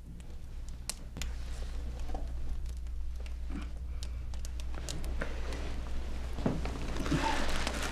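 Soft scuffing, rustling and small knocks of a man working his foot into a tight-fitting pair of snakeskin cowboy boots, over a steady low hum.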